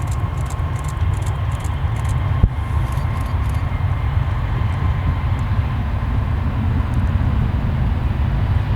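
Jet airliner engines at a distance, a steady low rumble with a faint thin whine above it, growing slightly louder near the end; a single sharp click about two and a half seconds in.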